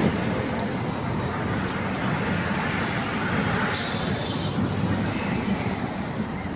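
Steady road traffic noise, with a short loud hiss about three and a half seconds in.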